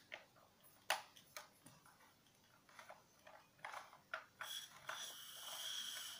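Soft plastic clicks and taps of a toy screwdriver turning a plastic screw into a take-apart toy truck, with one sharper click about a second in. Near the end a breathy hiss with a thin steady high tone sets in, as a child blows into a plastic toy tool part.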